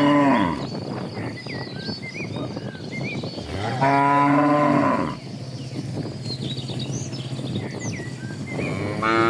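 Cattle mooing: the end of one long moo at the start, a loud long moo about four seconds in, and another beginning near the end, with faint high chirps in between.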